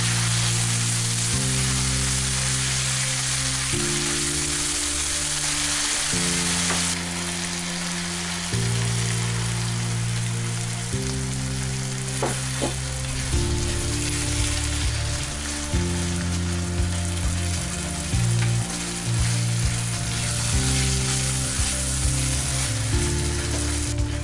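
Minced beef sauce sizzling in a frying pan as it is stirred with a wooden spoon; the sizzle eases about seven seconds in. Background music plays underneath.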